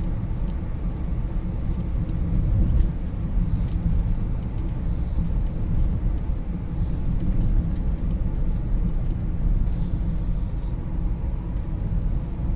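Car cabin noise while driving through a road tunnel: a steady low rumble of tyres and engine.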